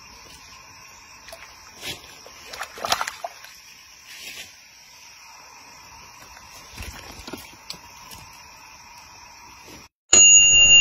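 A small hooked fish splashing at the water surface about three seconds in as it is pulled out on a pole, over a steady insect chorus. A loud electronic outro sound cuts in abruptly near the end.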